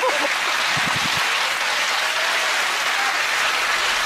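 Studio audience applause, a steady dense clapping.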